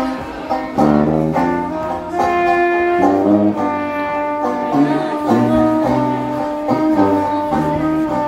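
A small jazz street band playing: trumpet lead over a strummed banjo and a sousaphone bass line.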